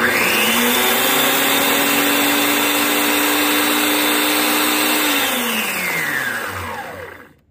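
Central Machinery 40981 12-inch band saw's motor and belt-driven wheel running with the blade removed: switched on, it comes up to speed almost at once and runs steadily, then is switched off about five seconds in and coasts down in falling pitch to a stop. It sounds how it's supposed to, running smoothly after the cleanup.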